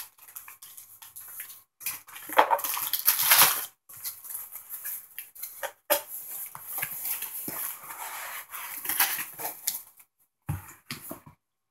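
Paper and plastic packaging rustling and crinkling as items are handled and sorted, loudest about two to three and a half seconds in, with scattered clicks and a low knock near the end.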